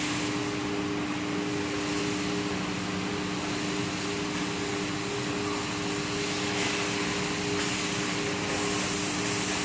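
ABS/HIPS plastic sheet extrusion line running: a steady industrial machine hum, with a couple of constant low droning tones under an even rush of motor and fan noise.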